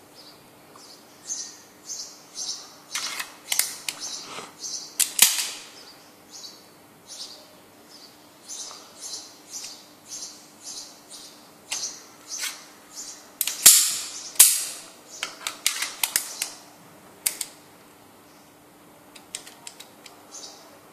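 Metallic clicks and clacks of a Khyber Pass-made Tokarev TT-33 pistol being handled, the loudest snaps about five seconds in and again around fourteen seconds. Small birds chirp over and over in the background.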